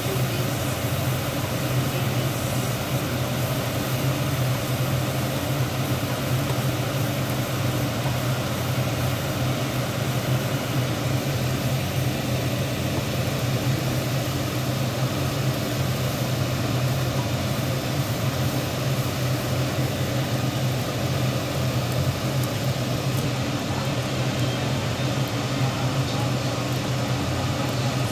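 Steady motor hum with an even rush of air, as from a kitchen fan running, at a constant level throughout.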